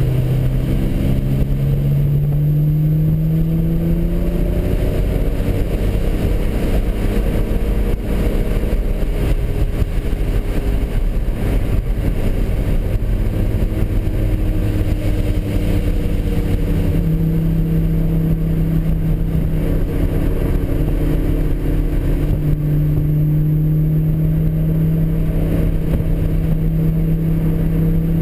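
Nissan 300ZX Z32 twin-turbo V6 at speed, heard from inside the cabin: the engine note rises through the revs over the first few seconds, breaks up in the middle, then holds a steady high pitch for the last ten seconds or so.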